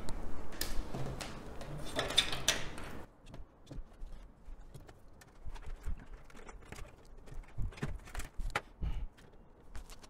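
Handling noise of small PC cables and connectors: a rustle for the first few seconds, then scattered light clicks and taps as the tiny front-panel switch and LED connectors are worked onto the motherboard header pins inside the case.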